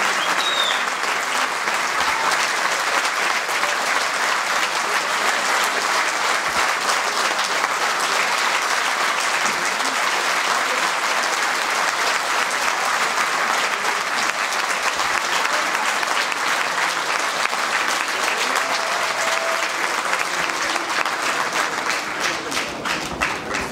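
Audience applauding steadily, thinning out to scattered claps near the end.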